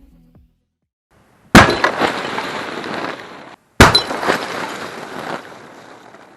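A sharp, loud blast from a device set off inside a water-filled glass aquarium, followed by about two seconds of glass shattering and debris crashing down. The sound cuts off abruptly and the same kind of blast and shattering comes again about two seconds later.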